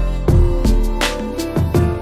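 Background music with a steady beat: regular drum hits under sustained instrumental notes.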